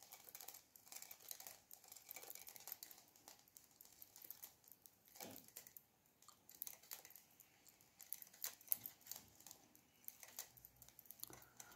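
Faint, irregular clicking of circular knitting needles as stitches are worked, with a light rustle of cotton yarn.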